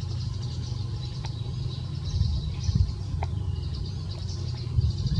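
Outdoor forest ambience: rapid, high chirping carries on over a steady low rumble, with a few faint clicks.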